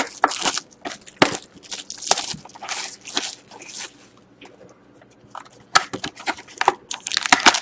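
Plastic shrink-wrap being torn and crinkled off a cardboard trading-card box, in quick ragged strokes for the first few seconds. After a short lull, the cardboard box lid is lifted open with short scrapes and clicks.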